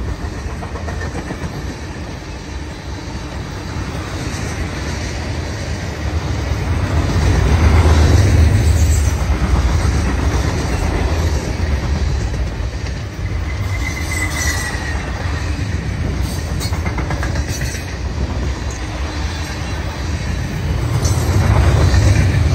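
Freight train cars (covered hoppers, then open coal cars) rolling past: steel wheels rumbling and clacking over the rails, the low rumble swelling twice. A brief wheel squeal about fourteen seconds in.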